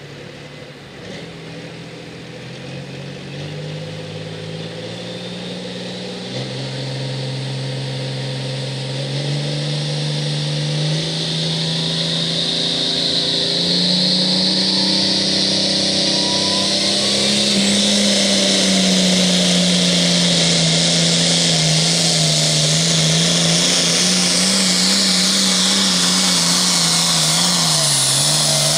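Limited Pro Stock pulling tractor's turbocharged diesel engine running hard at high revs during a pull. It grows steadily louder over roughly the first half, then holds loud, its pitch stepping up and then wavering up and down.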